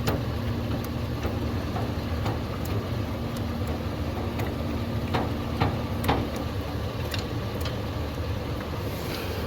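Pickup truck engine idling steadily, with scattered light clicks as the snow plow's stand jack is cranked down.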